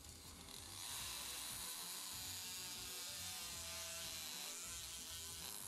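Surgical oscillating bone saw buzzing steadily as its blade cuts through the femoral neck in a hip replacement. It starts about half a second in and stops near the end, with background music underneath.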